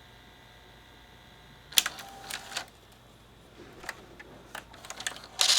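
Faint steady hum, then a sharp click about two seconds in, followed by scattered clicks, knocks and a louder clatter near the end: hands working on a VCR's tape mechanism.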